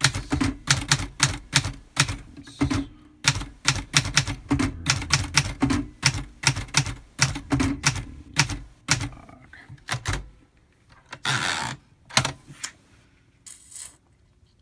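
A 1958 Hermes Ambassador manual typewriter being typed on: a fast run of typebar strikes for about nine seconds, then a few scattered strokes and a brief longer rasp near the end.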